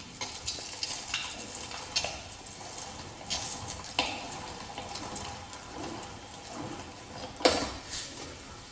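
ALISKID plastic hand-crank meat grinder mincing raw meat: irregular clicks and soft squishing as the meat is pushed down the hopper and forced through the cutting plate, with one louder knock near the end.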